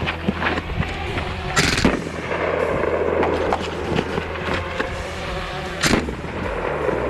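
Hatsan Blitz .30-calibre PCP air rifle firing repeatedly, shots cracking out one after another. Two much louder bangs come through, one about one and a half seconds in and one near six seconds.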